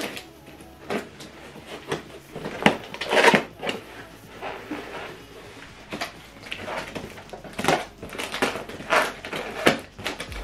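Cardboard box being opened: scissors cutting through packing tape and the cardboard flaps being pulled and pushed, heard as irregular scrapes, crackles and thumps. The loudest handling is about three seconds in.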